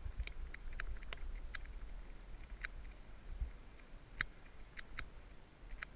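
Mountain bike riding over a dirt trail: irregular sharp clicks and rattles over a low rumble.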